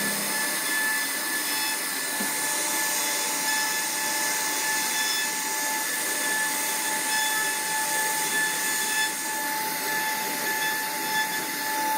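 CNC router spindle running and cutting wood: a steady hiss with a high, even whine.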